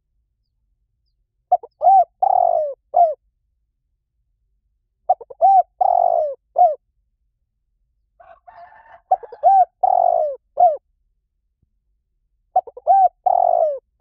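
Spotted dove cooing in four repeated phrases, one about every three and a half seconds. Each phrase is a short run of arching coos.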